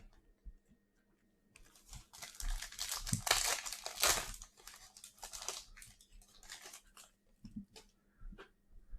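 Wrapper of a 2021-22 Donruss basketball card pack crinkling and tearing open. The rustling starts about a second and a half in, is loudest around the middle, and gives way to a few light clicks and rustles near the end.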